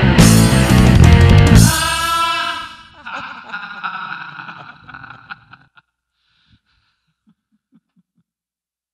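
Loud rock music with guitar stops about two seconds in. The last chord rings and fades over a few seconds into near silence.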